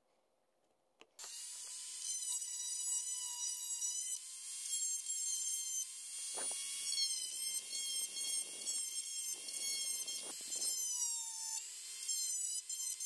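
Handheld rotary tool with a thin bit cutting into a plastic battery shell to enlarge a hole. Its high, steady whine starts about a second in, with rougher grinding in the middle stretch as the bit bites into the plastic.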